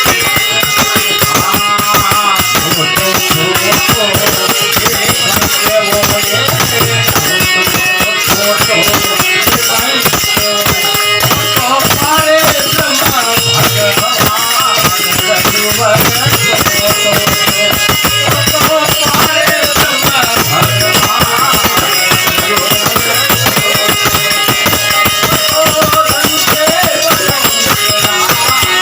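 Live bhajan music: fast, steady percussion with jingling strokes under a wavering melody line.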